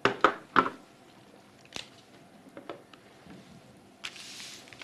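A couple of sharp plastic knocks as the Bodyguard 323 infusion pump is handled and set down on a table, then a lighter click. Near the end comes a short rustle of a plastic wrapper.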